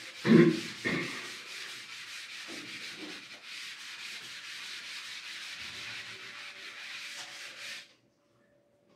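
A steady dry rubbing noise lasting about eight seconds, with two dull knocks near the start; it stops well before the end.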